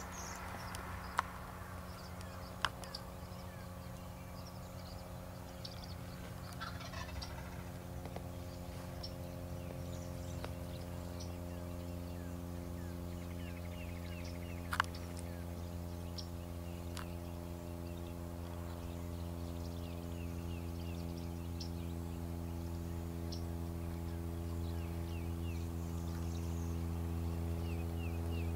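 Osceola wild turkey gobbler gobbling over a steady low hum, with small birds chirping faintly and a few sharp clicks.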